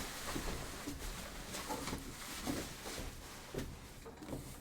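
Packaging being handled by hand: irregular rustling with light knocks and clicks.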